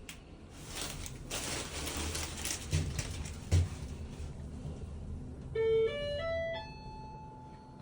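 A short electronic chime: four or five beeping notes stepping upward, the last one held, coming after a few seconds of faint background noise and a couple of soft thumps.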